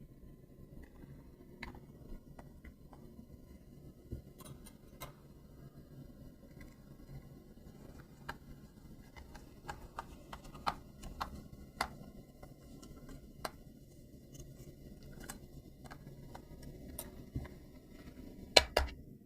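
Scattered light clicks and taps from hands handling a toy RC car and its plastic and cardboard packaging, over a faint low hum, with two sharper clicks near the end.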